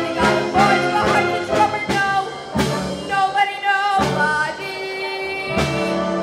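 A female vocalist sings live with a wind band accompanying her. Percussion hits mark the beat about twice a second for the first two seconds, then the band holds sustained chords under her wavering, vibrato-laden notes, with a few strong accents.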